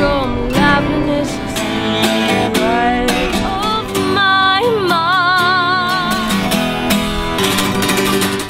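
Acoustic guitar strummed while a voice sings a melody, holding one long note with vibrato a little past halfway.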